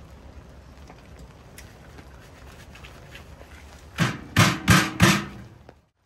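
Four loud knocks in quick succession, about a third of a second apart, starting about four seconds in: handling of a sheet-metal tent wood stove and its flue pipe during setup.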